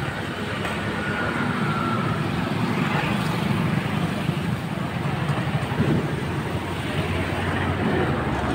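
Street traffic noise: a motor vehicle engine running steadily, with a low rumble throughout.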